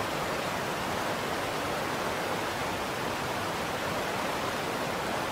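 Shallow creek water running steadily over stones, an even rushing noise.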